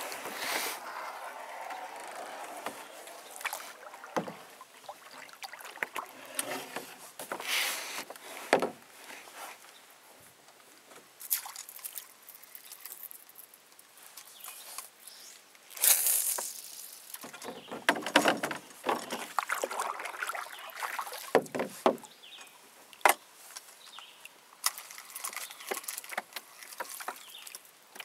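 Water splashing and lapping against a small boat's hull in irregular bursts as it is paddled, with a few sharp knocks now and then.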